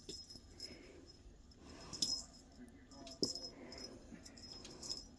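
Faint, intermittent metallic jingling and light ticks from cats playing with a fishing-pole cat toy, with two sharper taps about two and three seconds in.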